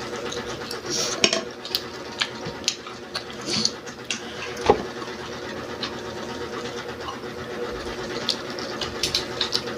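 Close-up chewing of crispy fried food: scattered short crunches and mouth clicks over a steady electric hum.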